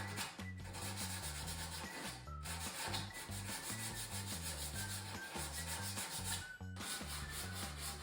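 180-grit sandpaper rubbed by hand in quick back-and-forth strokes over dried spackle in filled screw holes on wood, smoothing the bumps flush. The strokes break off briefly three times: about half a second in, about two and a half seconds in, and near six and a half seconds.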